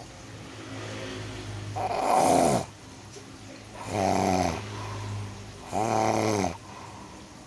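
Snoring in a steady rhythm: three loud snores about two seconds apart, each falling in pitch, with a lower rumbling snore on the breath between them.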